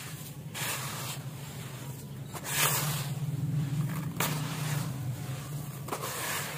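Handfuls of grey sand being lifted, crushed and dropped back into a plastic tub: four rustling, hissing swishes of falling, crumbling sand, one every second and a half or so, over a low steady hum.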